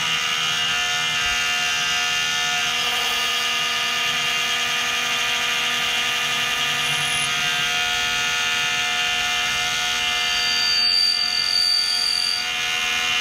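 Vevor 7x12 mini lathe running steadily, its motor and gears making a constant whine of several held tones, with a high-pitched squeal coming in near the end.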